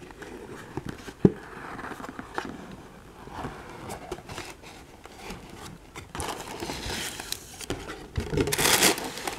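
Cardboard packaging being handled and slid apart: soft scraping and rubbing of cardboard with a sharp knock about a second in. Near the end comes a louder crinkling rustle as a plastic sheet is lifted off the contents.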